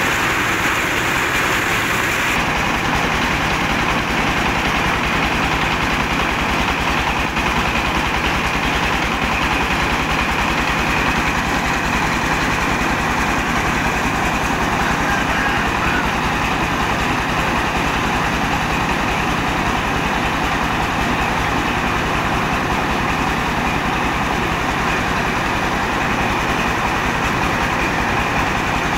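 Diesel-powered mobile rice mill running steadily: the engine and the huller and polisher make a dense, even mechanical din with a steady low hum while grain pours through.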